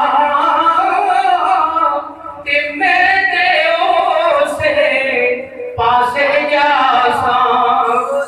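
A man chanting a line of Urdu verse in a drawn-out, sung melody, in three long phrases with short pauses about two seconds and five and a half seconds in.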